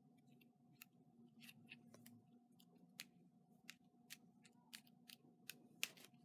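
Faint, irregular ticks and light paper rustles: hands with long fingernails pressing card-stock layers and a die-cut embellishment flat onto a handmade greeting card. A faint steady hum runs underneath.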